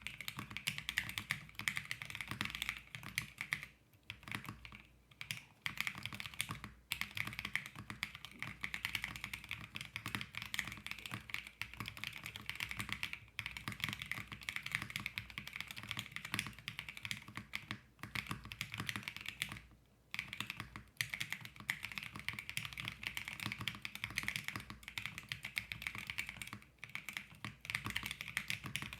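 Typing at a steady pace on a Bakeneko65 custom mechanical keyboard with stock Akko CS Crystal switches in an FR4 half plate on a gummy O-ring mount, with MT3 keycaps: fast runs of keystroke clicks with brief pauses between bursts.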